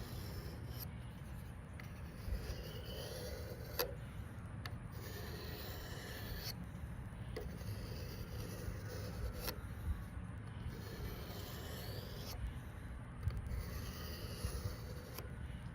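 Knife blade being drawn along the ceramic rods of a Sharpal 210N Transforod handheld sharpener: repeated scraping strokes about every one and a half to two seconds, with a few light clicks of steel against the rod.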